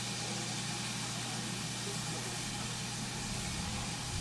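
Steady steam hiss with a low hum underneath from BR Standard steam locomotives, Britannia-class 70013 Oliver Cromwell and 9F 92214, standing in steam with their fires lit.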